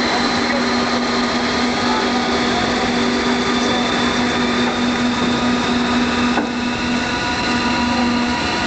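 Steady mechanical hum of the ferry's engines and ship machinery: a constant low drone with a fainter high tone above it, briefly dropping out near the end.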